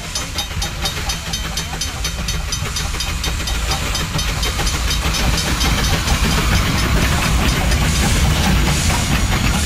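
Steam locomotive No. 480 hissing steam, with a low rumble and a fast, even ticking of several clicks a second. The sound grows louder toward the end.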